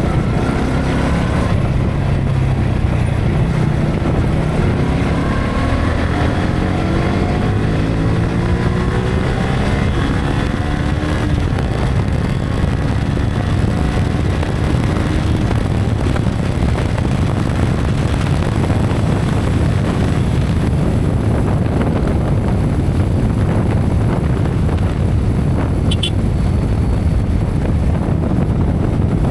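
Yamaha R15 V3's single-cylinder engine accelerating, its pitch rising in the first half, then heavy wind noise on the action camera's built-in mic at speed largely covers it.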